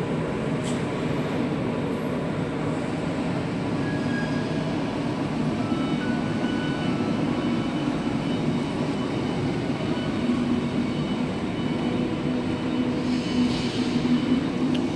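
A 100 kg industrial stainless-steel tumble dryer running with a steady mechanical rumble and hum.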